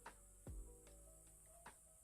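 Faint background music: held chords with a soft, deep drum beat.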